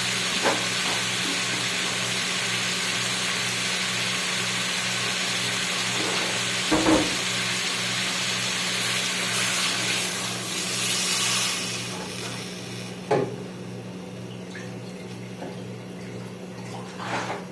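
Water being poured into a cooking pot of frying chicken and green papaya: a steady rushing pour that stops about twelve seconds in, with a few light knocks against the pot.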